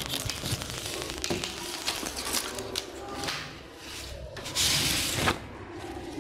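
Paper rustling as a large paper print and a loose paper strip are handled and slid across a table, with a louder sliding rustle lasting under a second about four and a half seconds in.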